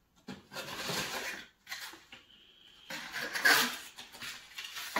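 Cardboard and paper packaging rustling and scraping as items are pulled out of a box, in two spells, the louder one about three and a half seconds in.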